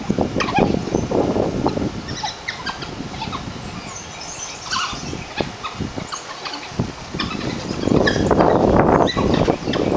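A pack of African wild dogs (painted dogs) rough-housing and calling to one another. Loud bursts come at the start and again about eight seconds in, with quieter scattered sounds between.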